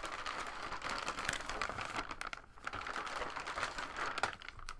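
Plastic trading card packaging crinkling and rustling as it is opened and handled, in an irregular run of short crackles that eases off briefly about halfway through.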